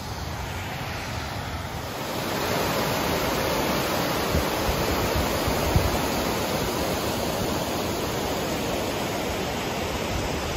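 River water rushing over a low dam spillway and rocky shoals, a steady rush that gets louder about two seconds in.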